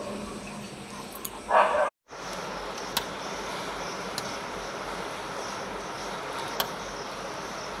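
A dog barks once, a short loud bark. After it comes a steady hiss of light drizzling rain, with a few sharp ticks.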